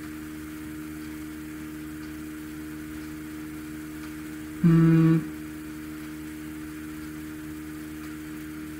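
Steady electrical hum on the recording. About halfway through comes one short, steady-pitched hummed "mm" from a man's voice.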